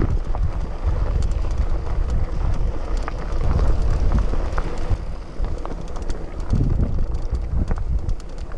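Wind buffeting the microphone of a camera riding on a moving mountain bike, a heavy steady rumble, with scattered clicks and rattles from the tyres and bike over the dirt trail.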